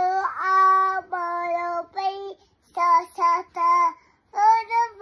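A toddler girl singing in a high, sing-song voice: a few long held notes, then a quick run of three short notes and two more near the end, with short pauses between phrases.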